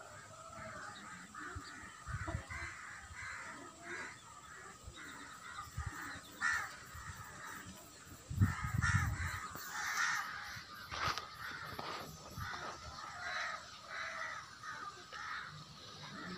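Birds calling over and over in short, closely repeated notes. A few low bumps come through, the loudest about eight and a half seconds in.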